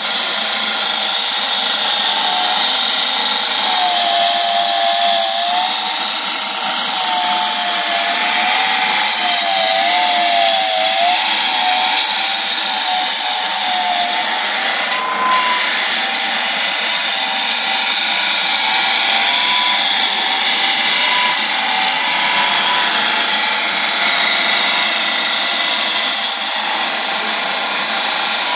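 Drum floor sander running steadily as it sands a parquet floor: a loud motor whine whose pitch wavers as the machine is pushed and loaded. It dips briefly about halfway through.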